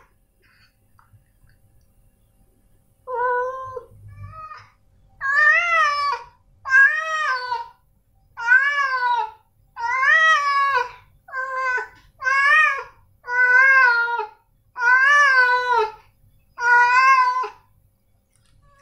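Tabby tomcat meowing over and over, about eleven drawn-out meows about one a second after a few seconds' quiet, each rising and then falling in pitch, the first two shorter and softer: the calling of a male cat in heat.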